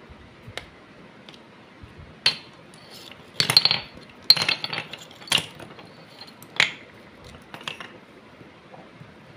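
Terracotta clay diyas being snapped apart by hand: irregular sharp cracks and crunches with shards clinking, a quick cluster of them a few seconds in.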